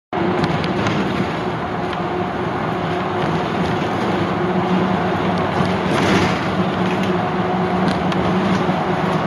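Interior cabin noise of a tour bus on the move: a steady engine hum over road and tyre noise, with occasional light ticks and rattles.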